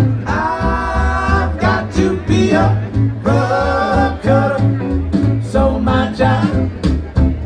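Rockabilly band playing: a singer holding long notes over electric guitar and a bass line that moves in even steps.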